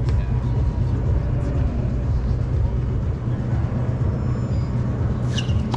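Steady low outdoor rumble with faint scattered clicks, then near the end the sharp crack of a tennis ball struck by a racket.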